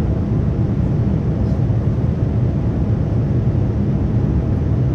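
Airliner cabin noise in flight: a steady, even low rumble of engines and airflow heard from inside the cabin.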